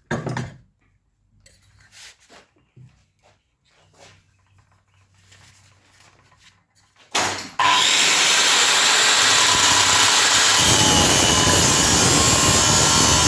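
A few faint handling knocks and clicks, then about seven seconds in a power tool starts and cuts steadily into the steel shell of an old air-conditioning compressor, loud and even to the end.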